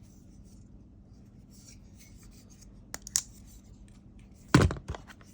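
Spyderco folding knives being handled: faint rubbing and rustling, two sharp clicks about three seconds in, and a louder cluster of knocks near the end.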